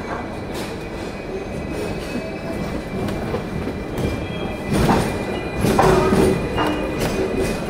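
Hong Kong double-decker electric tram running along its street track, heard from on board: a steady rumble and rattle of wheels on rail, with two louder clanks about five and six seconds in.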